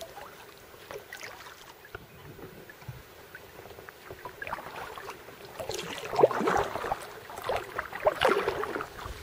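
Kayak paddles dipping and splashing in the water, an irregular run of strokes that grows louder in the second half.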